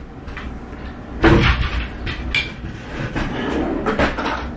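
A kitchen drawer is pulled open and things on the counter and in the drawer are handled. There is a loud knock about a second in, then lighter clicks and rattles.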